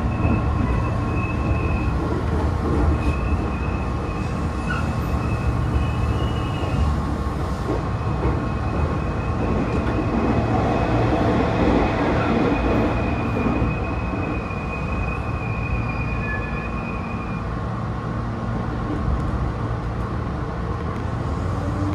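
Meitetsu electric train running on its line, heard from inside its cab: a steady rumble of wheels on rail and running gear, with thin high squeals of the wheels coming and going. Near the end a motor whine begins to rise in pitch.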